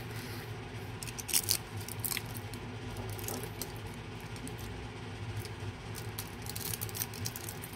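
Foil wrapper of a Toblerone bar crinkling in the hand, in a few short bursts of crackles, over a low steady hum.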